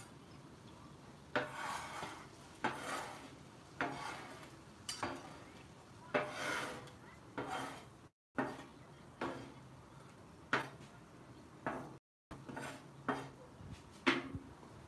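Metal spatula scraping across the steel top of a Blackstone flat-top griddle in repeated strokes, roughly one a second, each starting with a sharp scrape and fading quickly.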